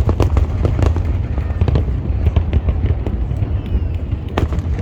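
Fireworks display: a rapid string of bangs and crackles over a steady low rumble, with one louder bang near the end.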